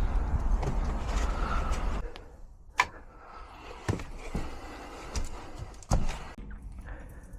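Low vehicle rumble that drops away about two seconds in, followed by a few sharp clicks and knocks in a quieter stretch.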